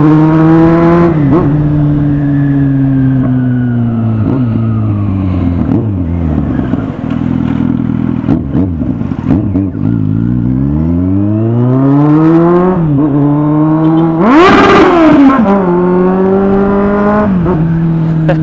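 Kawasaki Z800's inline-four engine ridden hard: revs fall away for several seconds, then climb steeply through the gears to a loud peak about two-thirds of the way in, with quick drops in pitch at each upshift.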